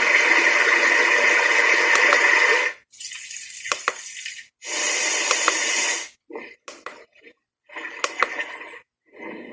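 Small speaker of a Core Innovations retro-style alarm clock playing previews of its alarm sounds, a rushing, hiss-like noise. Each preview cuts off and the next starts as the selection is stepped through: first one of about three seconds, then two shorter ones, then several brief snippets, with a few faint clicks between.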